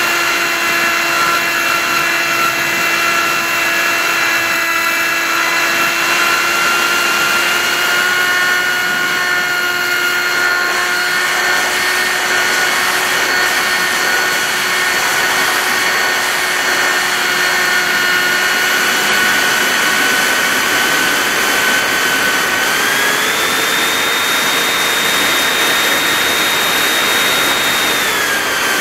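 TBRC Reflex 38 RC plane's motor and propeller, heard from a camera on the airframe: a steady whine with air rushing past. Late on, the whine steps up in pitch as the throttle is opened, then drops back just before the end.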